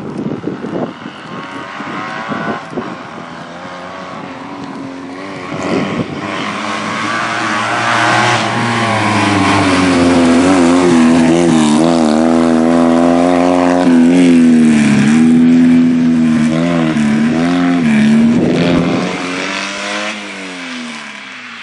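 Fiat 126p rally car's air-cooled two-cylinder engine revving hard as the car approaches and passes close by. The pitch rises and dips again and again, it is loudest about halfway through, and near the end it drops in pitch and fades as the car drives away.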